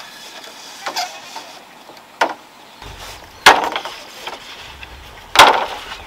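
Four sharp knocks or chops: two lighter strikes about a second and two seconds in, then two much louder ones near the middle and end, each with a brief ringing tail.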